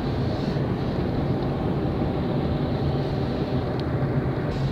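Steady road noise heard inside a moving car's cabin: engine and tyres running at an even pace with a low rumble.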